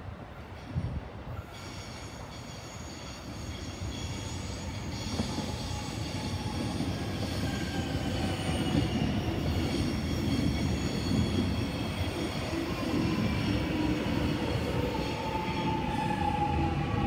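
Melbourne Metro electric suburban train pulling in alongside the platform, growing louder as it comes closer. Its motor whine slowly falls in pitch as it slows, over high-pitched wheel squeal.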